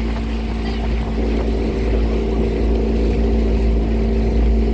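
Motorboat engine running steadily at constant speed: a continuous, even hum over a low rumble.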